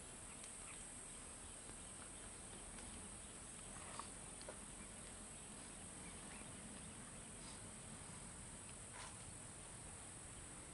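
Faint, steady high-pitched drone of insects, with a few brief sharp chirps about four seconds in and again near nine seconds.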